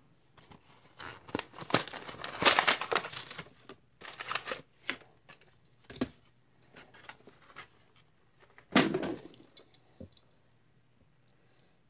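Clear plastic blister pack and card backing of a carded die-cast toy car crinkling and tearing as it is pulled open. The sound comes in several bursts, the loudest in the first few seconds and another near the end, with a sharp click in between.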